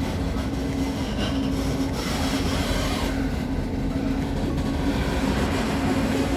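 Tram running, heard from inside the car: a steady low rumble with a motor hum that drops out briefly now and then.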